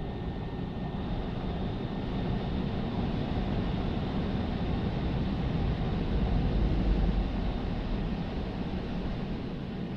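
Blower dryer of a Tammermatic T700 rollover car wash comes on abruptly and runs steadily, blasting air over the car, heard from inside the car's cabin as a dense rushing noise with a faint high whine.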